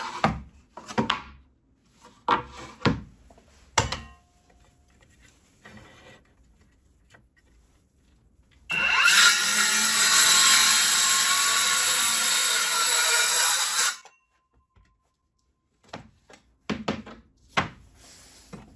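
Cordless DENZEL CCS-165 18V circular saw spinning up with a rising whine and cutting across a wooden board for about five seconds, about halfway through, then stopping abruptly. Before and after the cut, wooden boards knock sharply as they are handled on a wooden bench.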